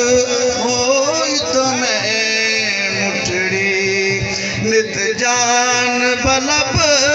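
A man singing a Saraiki Sufi kalam into a microphone, with long held notes that bend and slide, over musical accompaniment.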